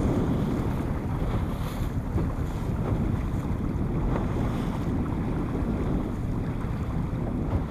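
Wind buffeting the microphone on a small open boat at sea, with water slapping against the hull; a steady, even rumbling noise.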